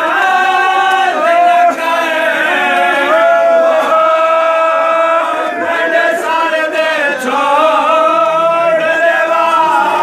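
A group of men chanting a Muharram mourning lament for Hussain together, in long held notes that slide between pitches.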